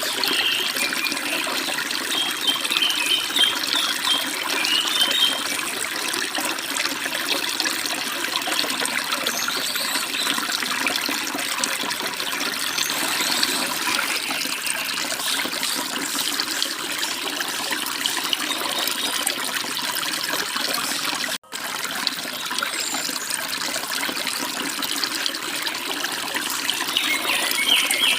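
Forest stream water running steadily over rocks, with short bird chirps in the first few seconds and again near the end. The sound cuts out for a split second about two-thirds of the way through.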